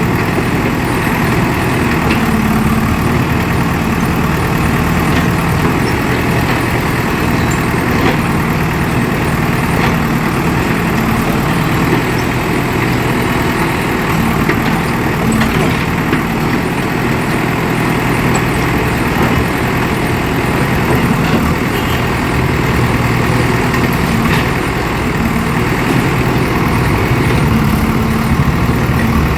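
JCB 3DX backhoe loader's four-cylinder diesel engine running steadily.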